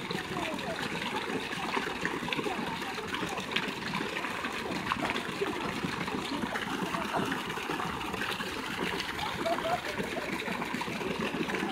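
Garden fountain running: a single jet sprays up and its water falls back into the pool, splashing steadily with many small droplet splashes.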